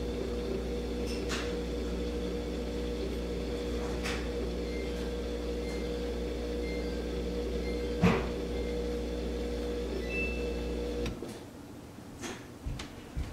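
Samsung dishwasher's drain pump running with a steady hum at the start of the cycle, with no grinding, a sign the repair has cured the grinding noise. A single sharp knock comes about eight seconds in, and the pump cuts off suddenly near the end.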